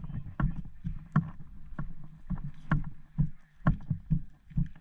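Irregular thumps and rustles, about two or three a second: handling noise from an action camera carried by a person walking across grass, with footsteps mixed in.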